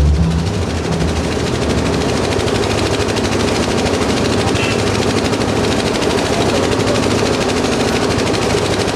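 Dense, rapid crackling noise, steady in loudness, after music breaks off in the first second.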